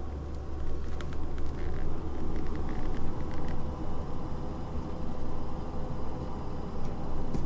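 A steady low mechanical hum and rumble, like a machine running, with a scatter of faint light clicks and ticks from about a second in to about three and a half seconds in.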